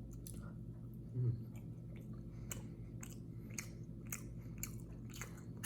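A person chewing breaded chicken nuggets: soft, irregular wet mouth clicks, a couple each second, over a faint steady hum.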